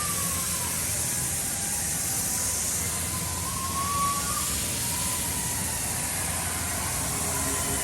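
Steady, loud rushing noise with a faint wavering tone.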